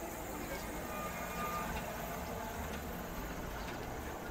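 A motor vehicle's engine running, a steady low rumble under street noise.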